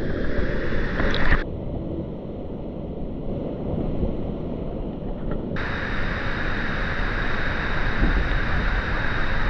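Steady rushing of a waterfall with a low rumble and wind noise on the microphone; the sound changes abruptly about a second and a half in and again about halfway through.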